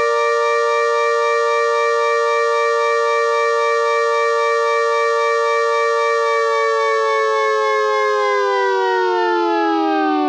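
Tornado siren sounding a steady two-note chord at full pitch, then starting to wind down about eight seconds in.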